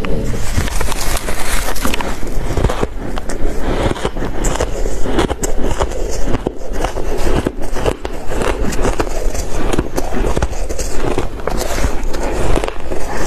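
Close-miked crunching of soft crushed ice chewed in big mouthfuls, a dense, continuous crackle, with a spoon scooping into the heap of crushed ice.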